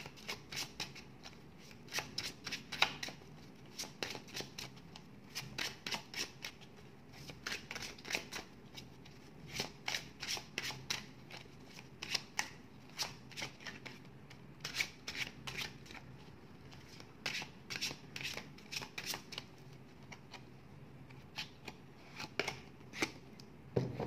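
Ferenc Pinter tarot deck being shuffled by hand: quick clusters of sharp card snaps and slaps, starting and pausing again and again.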